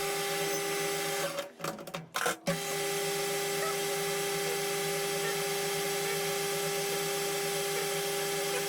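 Metal lathe running with a steady motor hum and whine. It stops about a second in, with a few knocks, then starts again about two and a half seconds in and runs steadily.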